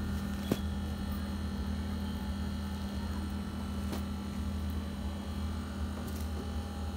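Steady low electrical hum with faint steady whine tones, and a sharp click about half a second in and a fainter one about four seconds in.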